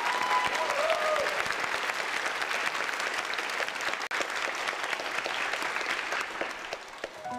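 Audience applauding, with a brief break about four seconds in, and dying down near the end.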